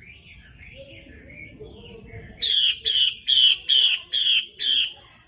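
Female Chinese hwamei singing: a soft, wavering warble, then about halfway through six loud calls in quick, even succession, each about a third of a second long.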